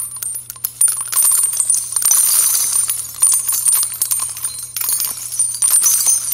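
A title-card transition sound effect: dense, continuous jingling and tinkling like small bells or chimes being shaken, full of sharp little metallic clicks.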